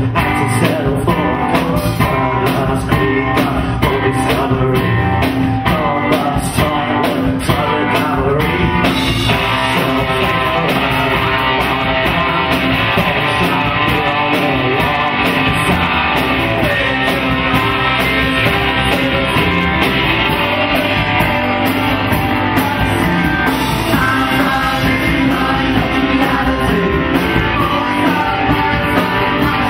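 Live rock band playing, with electric guitars, drum kit and singing. A steady beat stands out at first, and about nine seconds in the band comes in fuller and denser.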